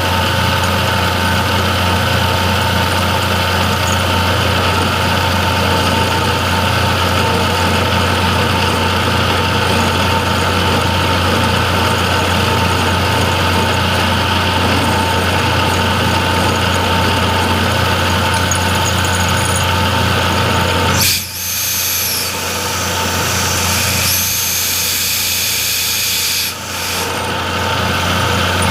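Milling machine running steadily with a low hum and a whine, as it mills slots in a steel part. The sound dips briefly near the end, then a high hiss rises over it for a couple of seconds.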